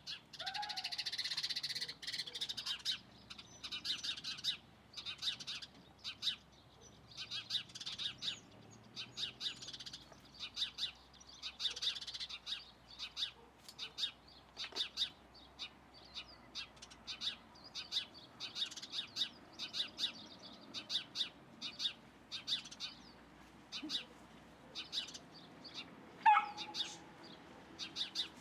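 Small birds chirping, a run of short, high chirps repeated over and over. Near the end one louder call slides steeply down in pitch.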